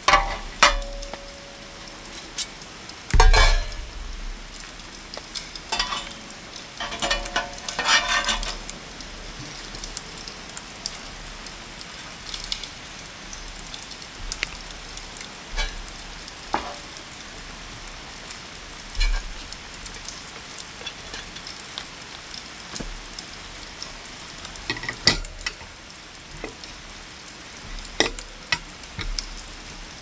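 Stainless steel trays, a perforated tray insert and a wire grill rack being handled and set down on a wooden table: scattered metal clanks and clinks, one ringing briefly at the start, a heavier knock about three seconds in and a run of rattling a few seconds later. A steady hiss of rain runs underneath.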